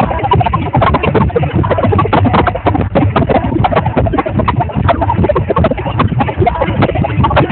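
Audience applauding: a dense, irregular clatter of many hands clapping at once, with crowd voices mixed in.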